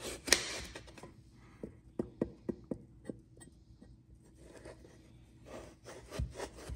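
Chef's knife slicing through firm, peeled raw butternut squash: a short scrape as the blade cuts, then a series of sharp taps as the blade strikes the cutting mat, with more slicing and taps near the end.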